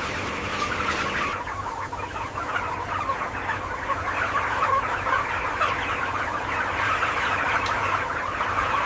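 A large flock of young broiler chickens cheeping and clucking together in a continuous, dense chatter.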